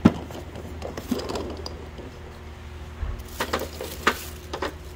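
Eggs handled into a plastic carrier bag: a sharp click of shell against shell right at the start, then light clicks and crinkling of the plastic bag as it is set on a scale. A steady low hum runs underneath.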